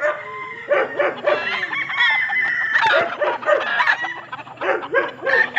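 Gamecocks crowing and clucking, several calls overlapping, with one long drawn-out crow through the middle.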